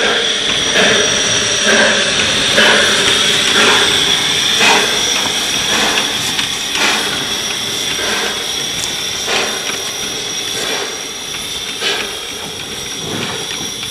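Narrow-gauge steam tank locomotive moving slowly: regular exhaust chuffs about once a second over a steady hiss.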